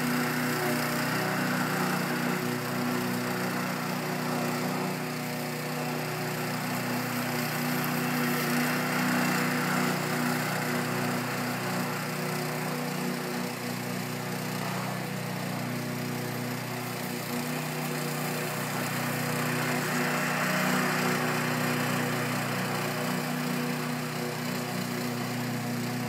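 Lawn mower engine running steadily, holding an even pitch with no revving up or down.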